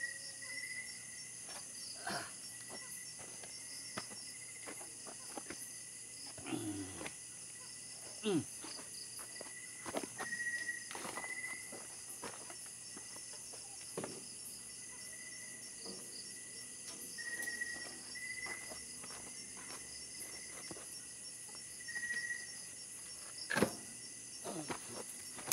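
Crickets and other night insects chirping steadily in a pulsing high trill, with scattered knocks and scrapes of concrete hollow blocks being handled and set in place; the sharpest knock comes near the end.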